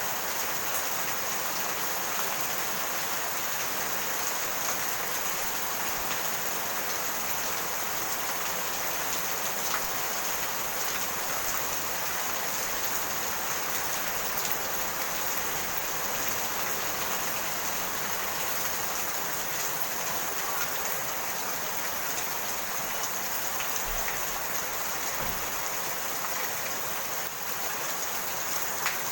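Steady rain falling, an even hiss with occasional louder drop ticks.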